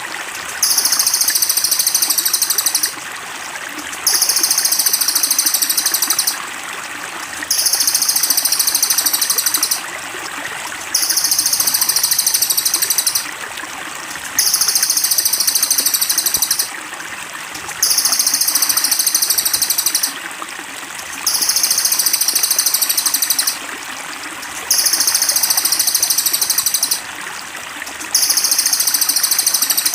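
A looped songbird training (masteran) recording: a high, rapid pulsing trill repeats in bursts of about two seconds, one every three and a half seconds. Under it runs a steady trickle of running water.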